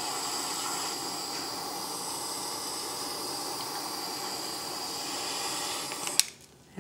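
Handheld kitchen blowtorch flame hissing steadily as it caramelizes the sugar topping of a crème brûlée. The hiss cuts off with a sharp click about six seconds in.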